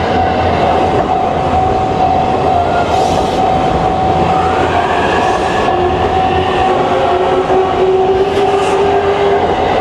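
Trains running past a level crossing, wheels clattering over the rail joints. The crossing's warning bell rings steadily throughout, and an electric train's motor whine rises about halfway through.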